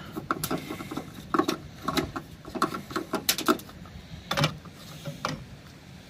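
Plastic fuel filler cap on a 1999 Dodge van being twisted off the filler neck by hand: a run of irregular clicks and scrapes, the loudest about three and four and a half seconds in.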